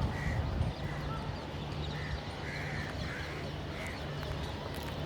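Crows cawing: several short, harsh caws at uneven intervals, over a steady low hum.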